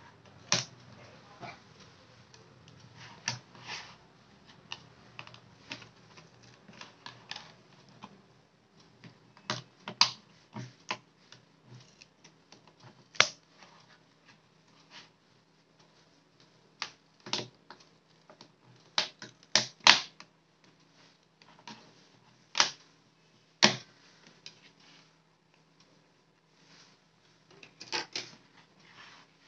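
Snap-fit clips of an Amazon Kindle's front cover clicking and snapping as it is pried off by hand: irregular sharp clicks with a few louder snaps.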